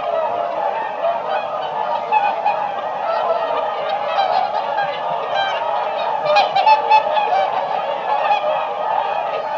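A flock of whooper swans calling together: a continuous chorus of overlapping honking, bugle-like calls, with a few louder calls about six to seven seconds in.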